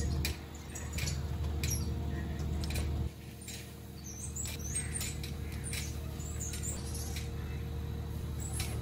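Bungee trampoline in use as a rider bounces: scattered short squeaks and clicks from the springs and bungee rigging, over a steady low hum.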